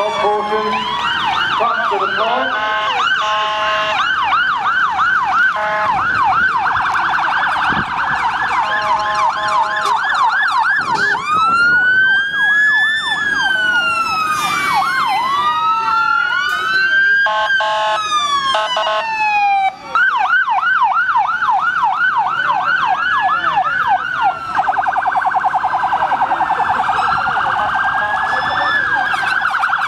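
Electronic sirens on more than one fire engine sounding together, overlapping and changing between a slow rising-and-falling wail, a fast yelp and a very rapid warble.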